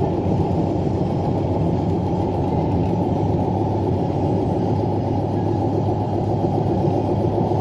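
Steady road and engine rumble of a vehicle cruising at about 40 mph, heard from inside the cab.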